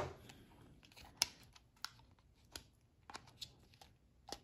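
Light plastic clicks and taps, a handful scattered over a few seconds, as multimeter test probes are handled and pushed into the probe holders on the back of the meter's plastic case.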